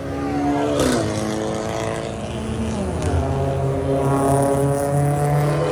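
Car engine pulling hard under full acceleration. Its note drops sharply about a second in, with a brief crack, and again near three seconds as it shifts up, then climbs again.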